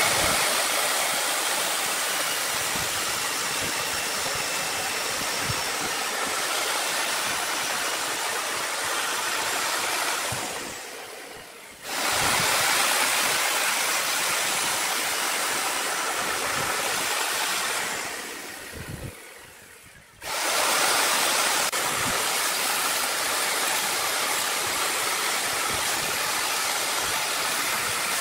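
Electric chainsaw running and cutting into a thick block of wood, a dense steady saw noise. Twice, about ten and eighteen seconds in, it winds down for a moment, then comes straight back up to full speed.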